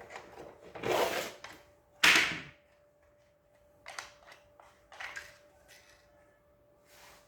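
Handling noises from unboxing a Glock 34 Gen5 pistol and its case: a scrape about a second in, a sharper, louder rush about two seconds in, then a few lighter clicks and knocks, over a faint steady hum.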